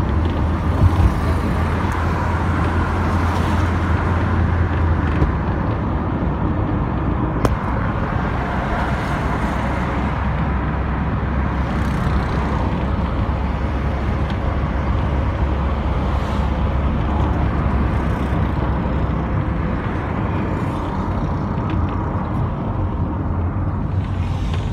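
Road noise inside a moving car's cabin: the car's engine and tyres give a steady low hum, with one brief click about seven and a half seconds in.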